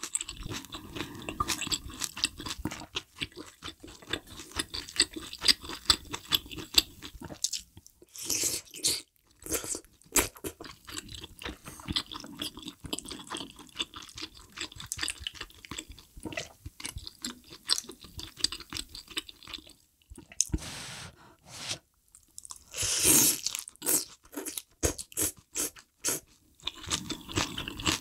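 Close-miked chewing and crunching of spicy mala hot pot: vegetables, noodles and fish cake, with a few louder slurps about eight, ten and twenty-three seconds in.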